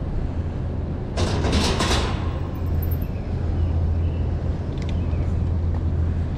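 Steady low wind rumble on the microphone and rolling noise from a bicycle being ridden, with a short, louder rush of hiss a little over a second in.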